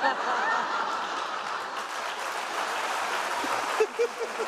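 Studio audience applauding and laughing, the clapping loudest at the start and easing off a little, with a few short cries of laughter about four seconds in.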